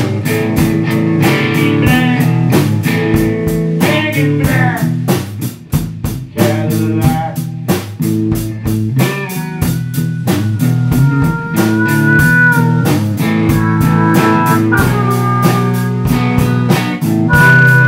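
A live blues-rock band playing an instrumental break: electric guitar over a drum kit with a steady beat, and held, bending lead notes from a harmonica.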